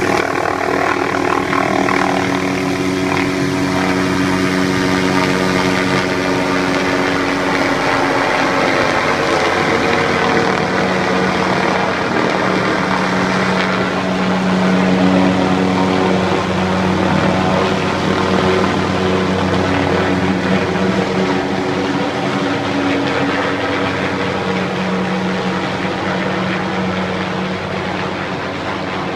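Helicopter flying a short-haul rescue with a person hanging below it on a line: a steady drone of rotor and turbine engine, easing off slightly near the end.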